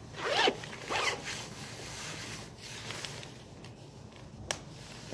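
Zip of a padded jacket being pulled, two quick zipping strokes about half a second apart, then a single click near the end.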